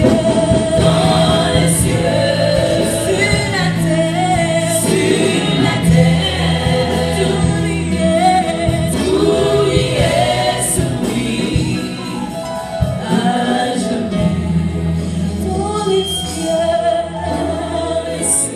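Live gospel worship singing: a small choir of women's voices with a male lead singing into microphones, over sustained low accompaniment from electric guitar and keyboard.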